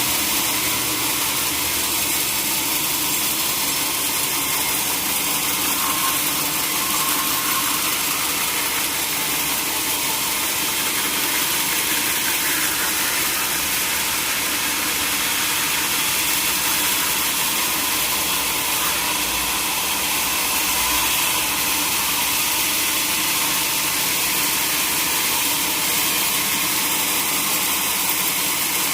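Sawmill machinery running at a steady level: an even, mostly high-pitched noise with a faint hum underneath.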